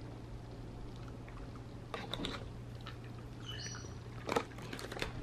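Dog taking and chewing a small treat from a hand: faint scattered clicks and crunches, the loudest about four seconds in, with a brief high squeak just before it.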